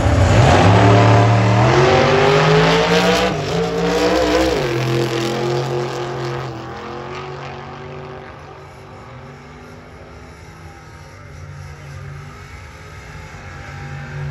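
Drag racing car accelerating hard down the strip, its engine note climbing in pitch and dropping back at each gear change, then fading as it goes away into the distance.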